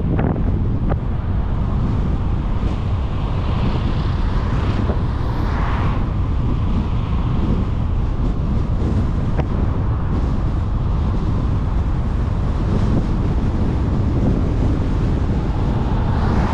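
Steady road noise of a car driving, with a deep rumble of wind on the microphone. An oncoming car passes about five seconds in, and another near the end.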